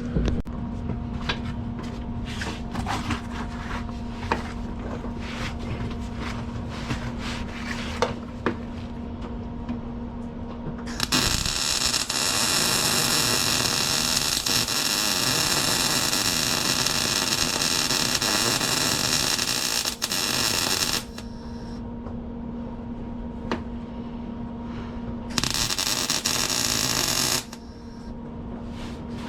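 MIG welder welding a subframe connector to the car's steel chassis: one long weld of about ten seconds, a dense steady crackling hiss, then a second short weld of about two seconds near the end. Before and between the welds there is a steady hum with scattered clicks and knocks.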